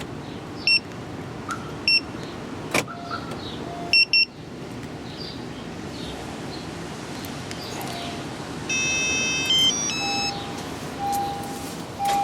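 Car alarm and remote start system sounding during a demonstration. There are short electronic beeps: one, another, then a quick double beep, with a couple of sharp clicks between them. Near the end comes a brief stepped multi-note electronic melody, followed by a lower beep that repeats about once a second.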